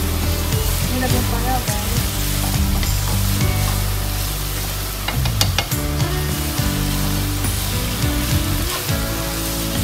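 Spiced deer meat sizzling in a nonstick frying pan while a spatula stirs it and scrapes the pan, with a few sharp clicks about five seconds in. Background music plays underneath.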